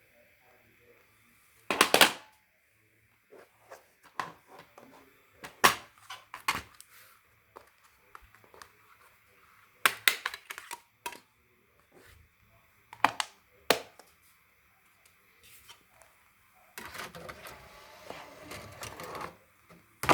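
A young child hiccuping: several short, sharp hics at irregular intervals of a few seconds, with a longer stretch of noise near the end.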